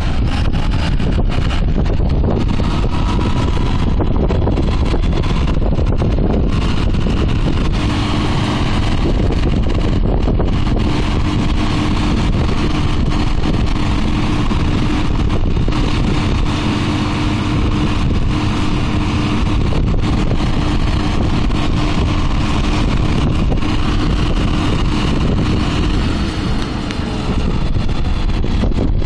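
Claas Arion 640 tractor and Claas Quadrant 3300 large square baler running steadily in the field, with wind buffeting the microphone throughout. A steady droning tone sits over the machinery noise through most of the middle.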